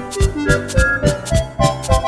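Upbeat instrumental music: a steady drum beat of about four strokes a second under a bright melody of held notes.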